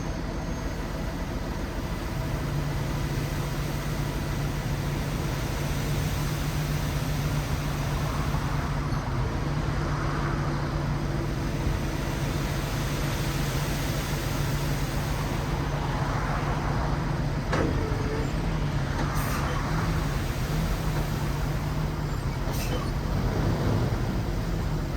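A 9 cubic yard dump truck's engine running steadily, its note stepping up about two seconds in and then holding. A few sharp clicks sound in the second half.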